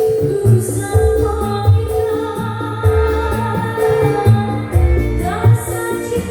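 Music with a repeating bass line under a held melody, with regular percussion hits; the melody slides upward in pitch near the end.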